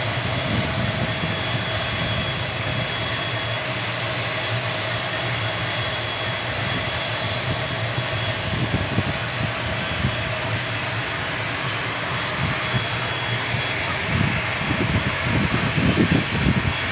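ATR 72 turboprop engine running steadily on the ground: an even whine over a dense rush of noise. Some low irregular bumps come in near the end.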